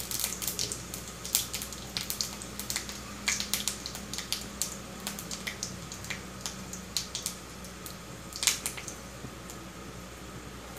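Bengal five-spice seeds (panch phoron) and a dry red chilli frying in hot mustard oil in a steel kadai, the seeds crackling and spitting with irregular sharp pops.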